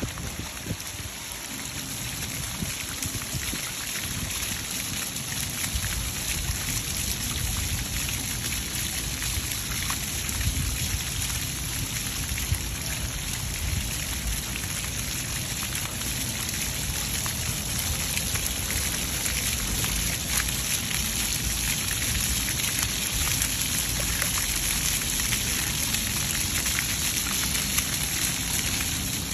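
Splash pad fountain jets spraying, with water splashing steadily onto wet paving tiles.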